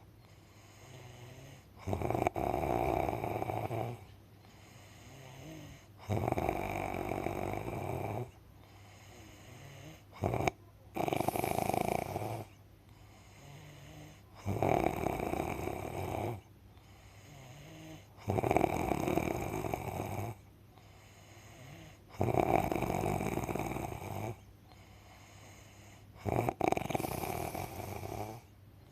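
Very loud snoring: a long snore of about two seconds roughly every four seconds, seven in all, with much quieter breathing between.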